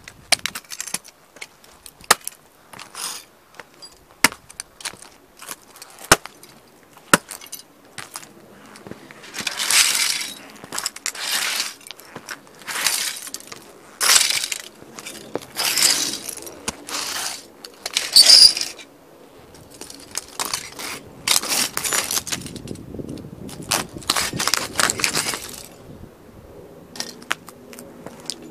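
Lowa hiking boots stomping toy model cars to pieces on concrete: repeated sharp cracks and snaps as the cars break. From about nine seconds in come longer crunching bursts, roughly one a second, as the soles grind the broken parts into the pavement. It eases off near the end.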